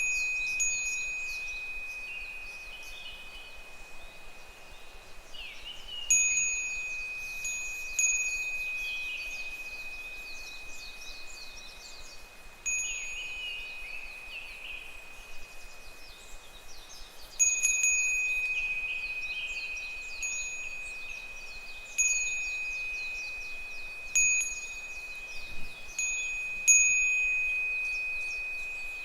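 Japanese fūrin wind chime ringing in the breeze: a single clear high tone struck irregularly, roughly every two to five seconds, each strike fading slowly. Behind it, the faint descending, pulsing calls of higurashi (evening cicadas).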